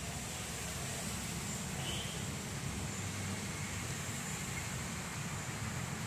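Steady outdoor background noise, a low rumble under an even hiss, with a faint short high chirp about two seconds in.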